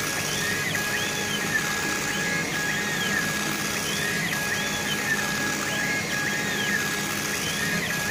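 CO2 laser engraving machine's head drive whining as the laser head makes rapid back-and-forth raster passes over wood. The steady whine breaks off about every second and a half, with a rising and falling pitch glide at each reversal, over a steady hum and hiss.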